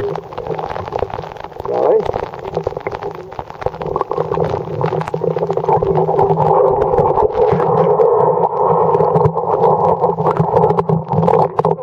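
River water heard through a submerged camera: a steady muffled rush with many small clicks and taps throughout.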